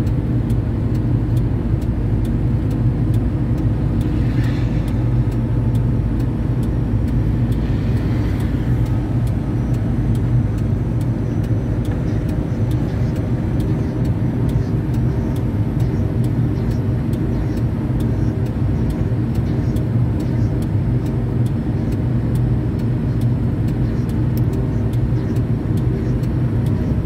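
Liebherr 1090-4 mobile crane driving at highway speed: its engine drones steadily under road and tyre noise, heard from inside the cab.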